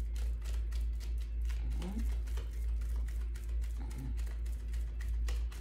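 Quick, light clicks and taps repeating over a steady low hum, with a brief murmur of a voice about two seconds in.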